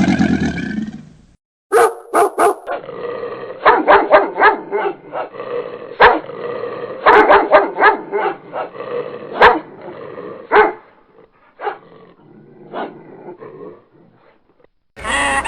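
Dog barking over and over in short, sharp barks, thinning out and growing fainter after about ten seconds. Another loud sound fades out in the first second, before the barking.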